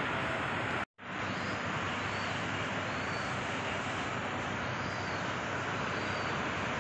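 Steady outdoor background noise, an even rushing hiss, broken by a split-second dropout about a second in. Faint high chirps recur a little under once a second.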